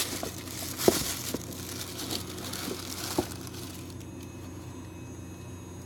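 Packing paper rustling and crinkling as a freshly opened subscription box's contents are handled, with a few light knocks. The rustling dies away after about four seconds, leaving a steady low hum.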